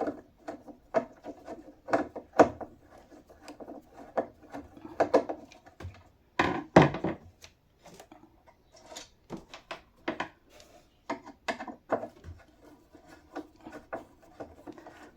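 Scattered clicks, taps and light knocks of a metal cabinet hinge, screw and washer being handled against a wooden cabinet door, with the loudest knocks a little before halfway.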